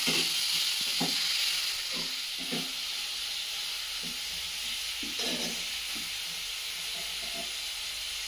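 Chicken pieces frying in a metal kadai: a steady sizzle, easing a little after the first few seconds, with the steel ladle scraping and knocking against the pan about once a second as they are stirred.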